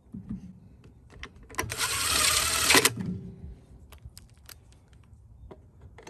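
DeWalt cordless impact driver run for about a second, hammering a fine-thread bolt into the mower's plastic carburetor threads. A few light clicks of handling come before and after.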